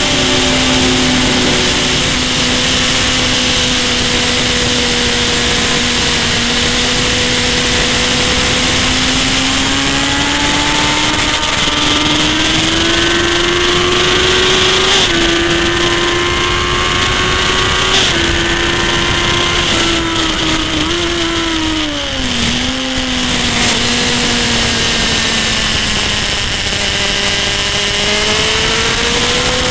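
Motorcycle engine pulling hard at high revs, its note climbing steadily with a couple of small steps, then dropping sharply about two-thirds through as the bike slows for a corner, and climbing again near the end. A steady rush of wind noise runs under it.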